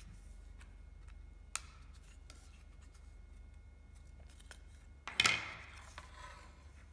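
Thin laser-cut plywood pieces being slotted together by hand: a few light wooden clicks, one sharper click about one and a half seconds in. About five seconds in, the large plywood sheet scrapes and rustles as it is slid and lifted off the bench.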